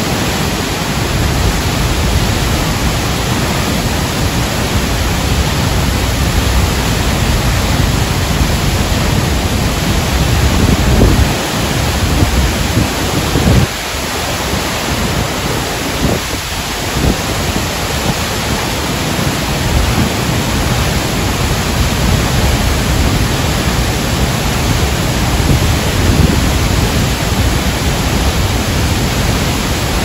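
A tall waterfall in heavy flow plunging into its pool: a loud, steady rush of water, with a low rumble that swells and dips.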